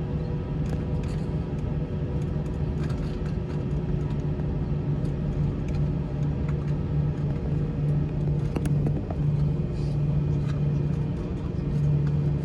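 Steady low drone inside an Airbus A321 cabin on the ground before takeoff, with several steady tones over it and a few small clicks from the cabin.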